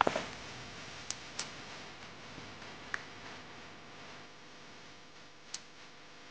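Small clicks and taps from hands handling a painted clay figurine and its ornaments, a few scattered single clicks over a steady faint hiss; the loudest is a knock right at the start.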